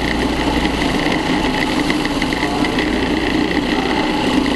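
Electric food processor motor running steadily with a continuous hum, churning a thick, sticky pecan and sunflower-seed mixture.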